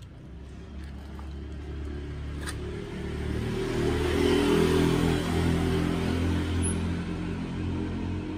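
A motor vehicle's engine passing along the street, swelling to its loudest about halfway through and then fading away.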